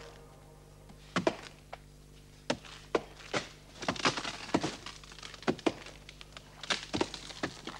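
Several people chopping a felled sago palm trunk with hand axes: a run of irregular wooden thunks, sometimes two or three in quick succession, at times overlapping.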